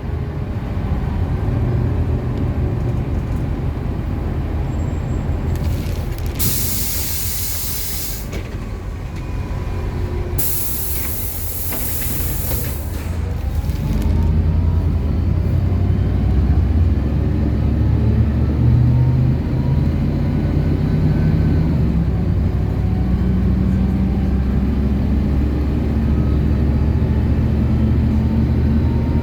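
City bus engine running, heard from inside the bus, with two loud hisses of compressed air from the air system, each lasting about two seconds. After them the engine grows louder with a slowly rising pitch as the bus speeds up.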